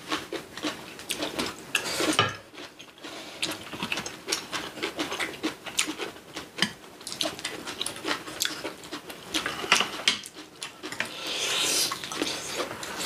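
Close-up eating sounds: chewing, with many small irregular clicks of cutlery against dishes, and a longer hissing noise about eleven seconds in.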